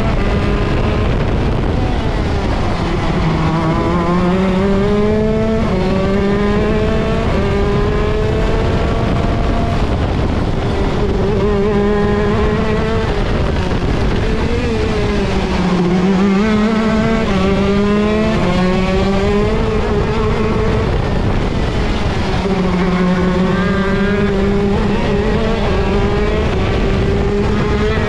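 Vortex ROK Shifter 125 cc two-stroke kart engine at racing speed, its pitch climbing through the gears and breaking at each shift, and dropping as the kart brakes and downshifts for the corners.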